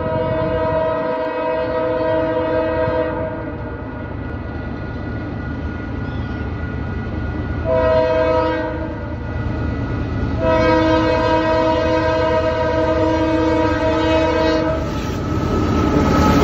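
Union Pacific freight locomotive's air horn sounding a chord of several notes: a long blast, a short one about eight seconds in, then another long one, a warning pattern sounded for a grade crossing. Near the end the locomotive's engine and wheels on the rails grow loud as it passes close.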